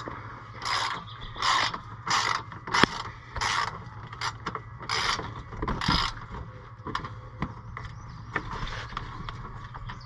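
Ratchet wrench with an 8mm socket working the small bolts that cover the oil filter: a burst of ratchet clicks on each back-swing, about every two-thirds of a second, turning to lighter scattered clicks in the last few seconds.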